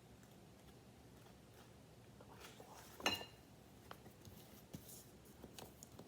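Cards being handled in a quiet room: small clicks and taps, with one sharper snap about three seconds in.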